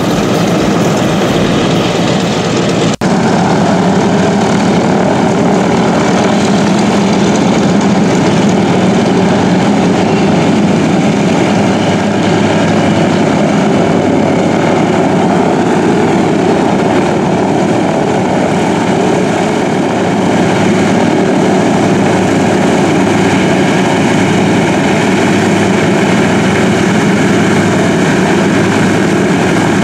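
Douglas DC-3's twin radial piston engines running at low taxi power, a steady loud propeller drone, with a brief dip about three seconds in.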